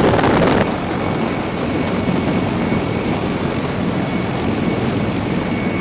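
Sikorsky CH-53E Super Stallion heavy-lift helicopter running on the ground with its rotor turning: a steady rotor and engine noise with a faint, thin turbine whine above it. About half a second in, a louder rushing noise cuts off abruptly.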